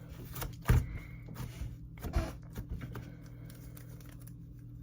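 A few light knocks and handling noises from a slime container and sprinkles being handled, over a steady low hum. The loudest knock comes under a second in, and another about two seconds in.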